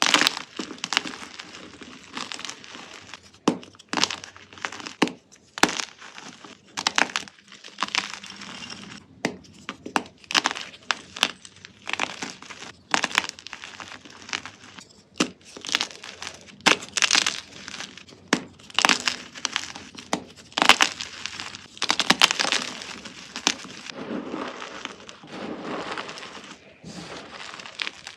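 Brittle material being crushed, with many irregular crisp crunches and cracks, some sharper and louder than others.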